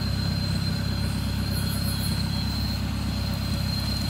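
Suzuki Jimny engine idling steadily, a low even rumble.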